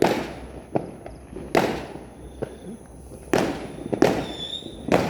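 Fireworks going off in a neighbourhood: about seven loud bangs at uneven spacing, each with an echoing tail, and a short high whistle near the end.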